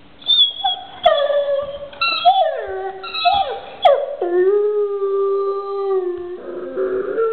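Dog howling and whining in a run of drawn-out notes that slide down in pitch, ending in one long low note of about two seconds. A couple of sharp clicks come in between.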